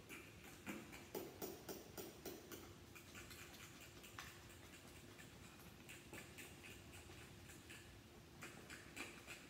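Fork beating eggs in a glass bowl: faint, quick, uneven clicks of metal tines against glass, thinning out in the middle and picking up again near the end.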